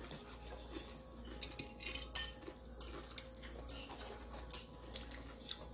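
Chopsticks clicking and scraping against a plate while picking up noodles: a scattering of short, sharp clicks at irregular intervals.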